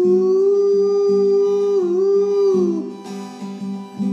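Closing bars of a song: acoustic guitar strumming under a long held note that wavers, dips and slides down, stopping just before three seconds in. A final chord is struck about four seconds in and rings out.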